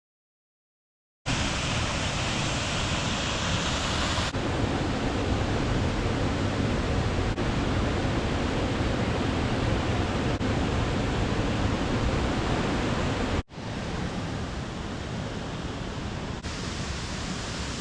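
Steady rushing of a waterfall, starting after about a second of silence and running through several abrupt cuts about every three seconds, a little quieter after the cut near the end.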